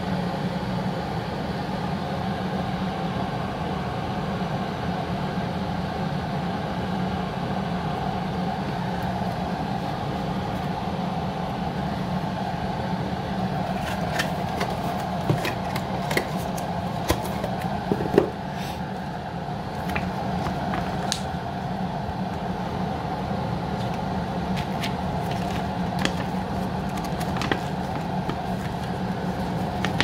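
Glass electric kettle heating water, a steady hum. From about halfway, scattered sharp clicks and rustles of a cardboard box and a paper instruction leaflet being handled.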